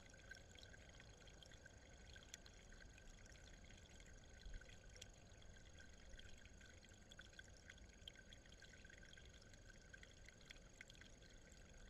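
Near silence: a faint trickle of water running over rock, with a steady faint hiss and occasional tiny ticks.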